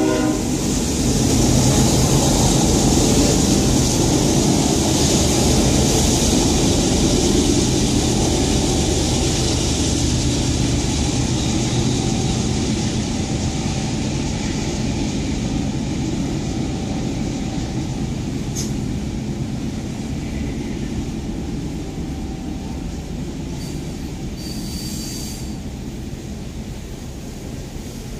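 Freight cars of a passing train rolling by: a steady rumble and clatter of steel wheels on rail that slowly fades as the locomotives draw away. A short, high-pitched wheel squeal comes near the end.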